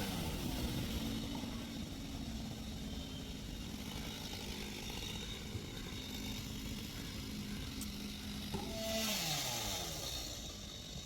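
Two-stroke chainsaw dropping from full throttle to a quiet idle, idling steadily, then slowing down and stopping near the end as it is switched off.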